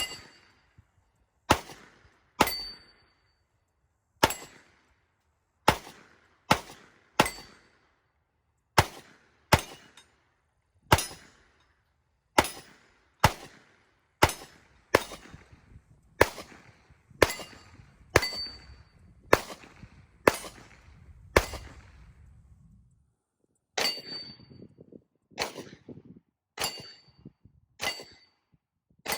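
Sig Sauer P365 X Macro 9mm pistol fired in slow, steady single shots, roughly one a second and about two dozen in all, with a pause of about two seconds past the middle. Several shots carry a short metallic ring.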